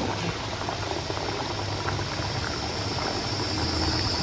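Hot oil sizzling and crackling steadily in a pan as a batch of masala mathri, flaky fried dough crackers, deep-fry. A low steady hum runs underneath.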